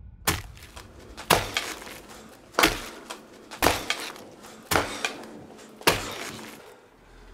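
Six heavy hatchet blows, about one a second, each a sharp impact with a short tail after it.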